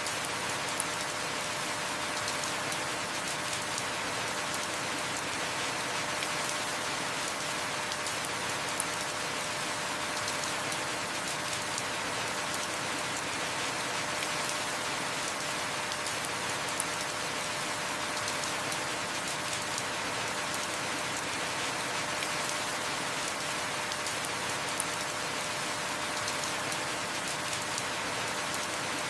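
Heavy rain falling steadily, an even hiss with no let-up, with a faint click about every eight seconds.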